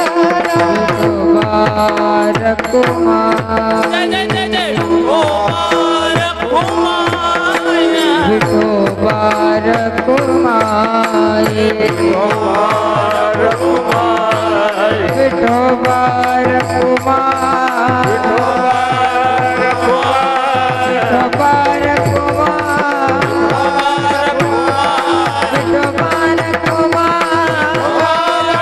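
Marathi devotional bhajan: a very high solo voice singing over a steady held drone note and a quick, regular hand-drum beat.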